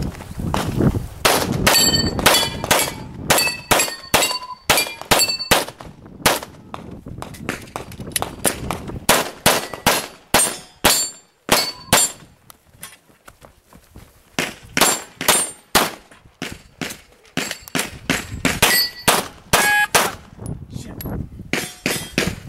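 Rapid pistol fire on a practical shooting stage: many shots, mostly in quick pairs, broken by a few short pauses. Steel targets ring after some of the hits.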